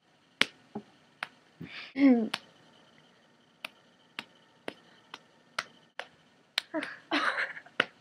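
A string of sharp snapping clicks, about two a second through the second half, with a short vocal sound about two seconds in.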